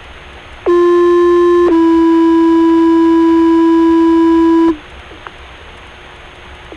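Two-tone sequential paging tones over a fire-department radio channel, received on a handheld scanner: a low steady tone held for about a second, then a slightly lower tone held for about three seconds, the signal that sets off a fire station's pagers. Radio hiss runs before and after the tones, with a short squelch burst at the very end.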